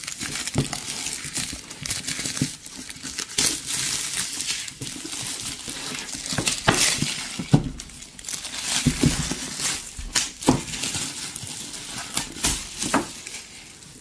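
Thin clear plastic film being peeled off a cardboard box and handled, crinkling steadily with sharp crackles scattered through it.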